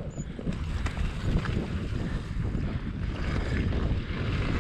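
Enduro motorcycle engine running at low revs while the bike rides down loose rock scree, a steady low rumble mixed with wind buffeting the helmet-camera microphone.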